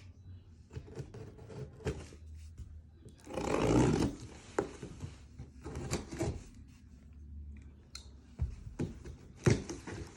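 Cardboard packaging being opened and handled: scattered knocks, scrapes and rustles of an inner box, with a louder sliding rush about three and a half seconds in and a sharp knock near the end.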